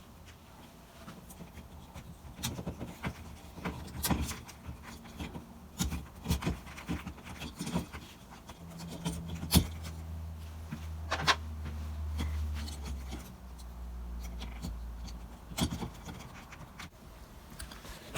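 Scattered clicks, taps and rubbing of electrical wires being handled and pushed into push-in connectors in a switch box, with a low steady hum for a few seconds in the middle.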